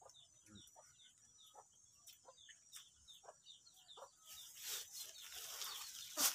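Chickens calling: a string of short, high, falling peeps, about three a second, with some lower clucks. About four seconds in a steady hiss joins in, and a sharp knock comes near the end.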